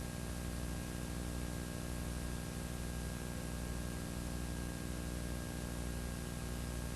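Steady electrical hum and hiss with nothing else: the recording's own noise floor, with no sounds or speech in it.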